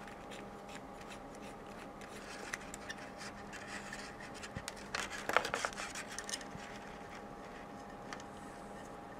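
Hands fitting a small amplifier board between two coax cables: small scrapes and metallic clicks from the coax connectors and cables being handled and joined. A cluster of sharper clicks comes about five seconds in. A faint steady hum runs underneath.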